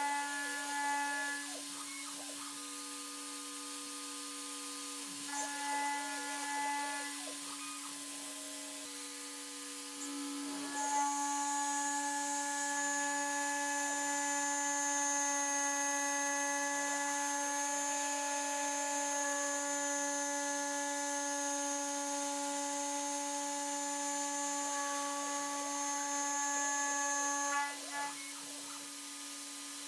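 CNC milling machine spindle running with a small cutter machining an aluminium plate: a steady spindle whine, with higher cutting tones in two short spells near the start. From about ten seconds in the cut gets louder and a high-pitched whine joins it, and both stop a couple of seconds before the end.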